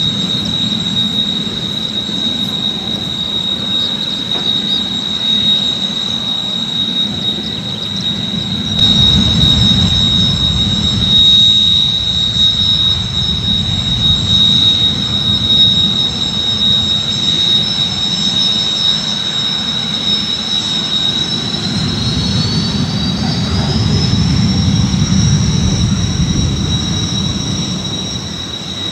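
Kawasaki T-4 jet trainers' turbofan engines whining steadily at taxi power, one high steady tone over a low rumble. About three-quarters of the way through, a second higher whine rises in pitch and then holds.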